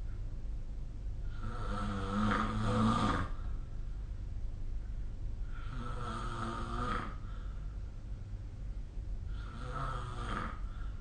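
A sleeping person snoring: three snores about four seconds apart, each lasting one to two seconds, with the first the longest and loudest. A steady low hum runs underneath.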